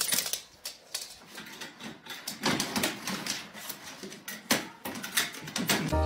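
Irregular sharp clicks and knocks in a small room, a few a second, with louder knocks about two and a half, four and a half and five seconds in.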